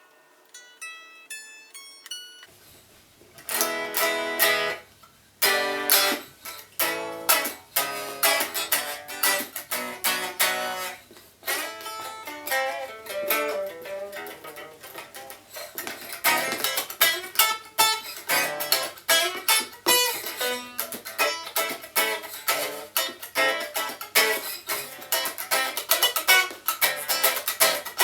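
Guitar music: a few sparse, ringing plucked notes, then about two and a half seconds in a fast run of picked notes starts over a steady low hum and carries on as busy picking.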